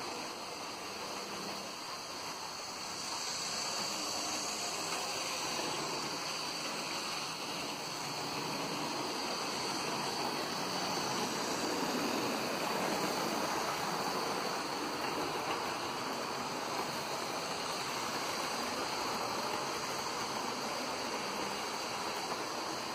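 OO gauge model trains running on the layout: a steady rushing rumble of metal wheels on the rails and the locomotive motors, growing louder about three seconds in as a rake of passenger coaches passes close by.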